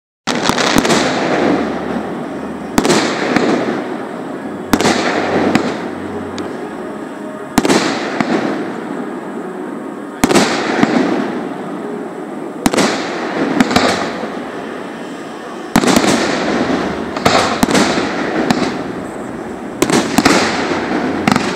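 Aerial firework shells bursting, about a dozen loud bangs roughly every two seconds, each trailing off over a couple of seconds, with several coming in quick succession near the end.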